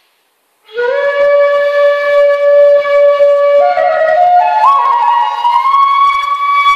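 Solo flute music: after a brief silence, about a second in, the flute holds a long low note, then climbs in a few quick steps to a higher note held near the end.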